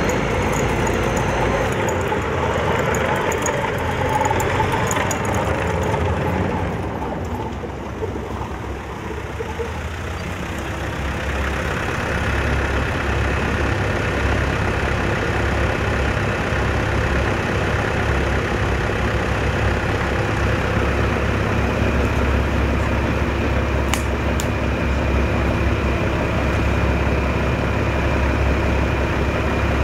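Armoured vehicle engine running with a steady low drone. It is rougher and busier for the first several seconds, dips slightly, then settles into an even idle. There is a single sharp click about 24 seconds in.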